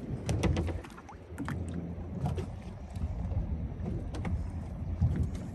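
Small fishing boat on the water: a steady low rumble with scattered light knocks and clicks.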